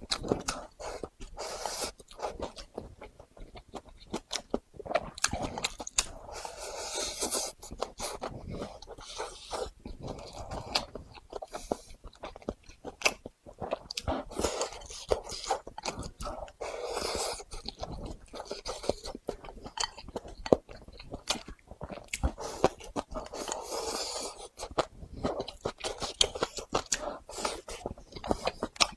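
Close-up mouth sounds of a person chewing and biting a rice bowl of twice-cooked pork with dried tofu: many sharp clicks and smacks, with a few longer, wetter stretches of chewing.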